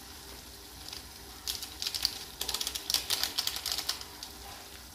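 Crinkling and crackling of a small Maggi Masala-ae-Magic seasoning sachet being opened in the fingers, a fast run of dry clicks from about a second and a half in until about four seconds.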